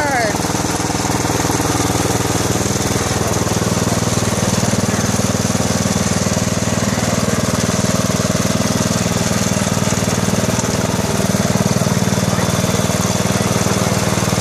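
Wheel Horse 857 garden tractor's single-cylinder engine running steadily while the tractor drives along, with a slight rise in level a few seconds in.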